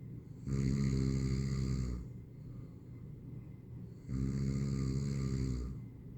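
A person snoring: two long, low snores, the first about half a second in and the second about four seconds in, each lasting about a second and a half.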